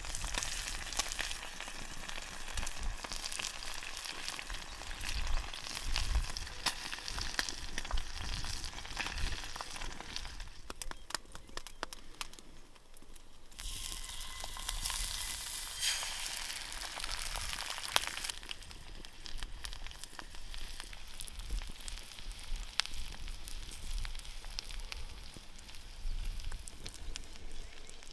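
Food frying and sizzling over a campfire, a steady hiss with scattered crackles. The sizzle dies down about halfway through, then comes back louder for a few seconds.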